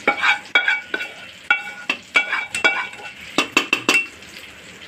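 Metal spoon scraping and knocking against a steel pressure cooker pot while masala is spread over a layer of biryani rice, a dozen or so irregular clinks that ring briefly.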